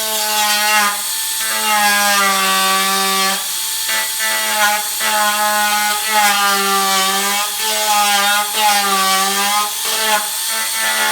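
Handheld electric power tool run in repeated bursts of one to two seconds with short gaps, its motor pitch sagging and recovering within each burst as it bites into metal on the motorcycle frame.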